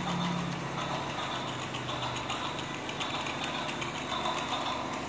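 Battery-powered toy train's motor and wheels running along a plastic track: a steady whirring rattle.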